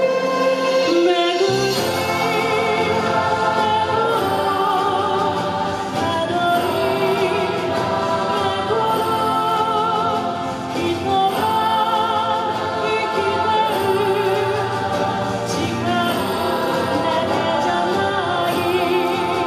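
A woman singing with a wavering vibrato into a microphone, amplified through a PA speaker, over instrumental accompaniment whose low end comes in about a second and a half in.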